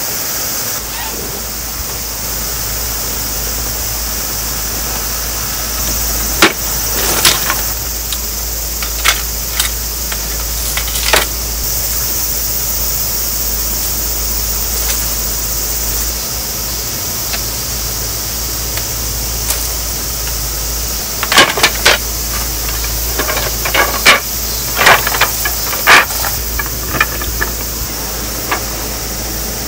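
Scattered clicks, knocks and light clatter of camping gear being handled and hung up, over a steady hiss with a low hum underneath. Most of the knocks come in a cluster about two-thirds of the way through.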